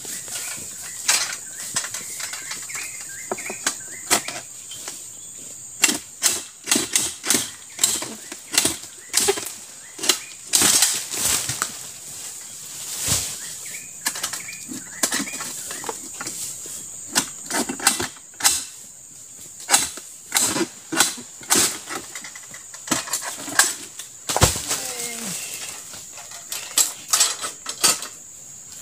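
Irregular runs of sharp cracks, clicks and rustling as an oil palm harvester works dry palm fronds with a pole sickle, over a steady high hiss. One heavy low thud comes about 24 seconds in.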